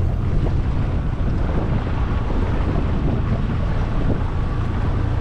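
Steady wind rumble on the microphone aboard a small aluminum jon boat under way, with the boat's motor running and river water washing against the hull.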